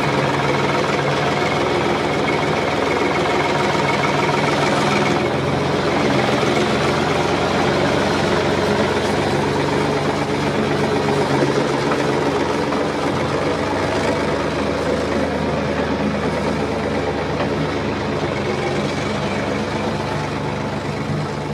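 Engine of heavy farm machinery running steadily, a low, even drone that holds the same pitch throughout.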